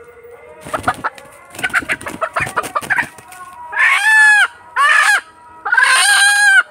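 A rooster squawking loudly in alarm as it is grabbed and held by hand: a scuffle of flapping and rustling, then three long, loud squawks in the second half.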